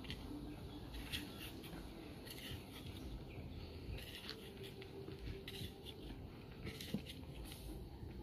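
A knife cutting through a green sweet pepper held in the hand, a scatter of faint, irregular crisp cuts and clicks.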